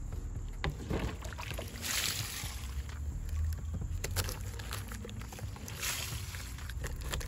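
Water sloshing and splashing in a plastic cooler as a steel ammo can is held under with a plastic-wrapped block of wood laid on top, swelling twice, with a few short knocks.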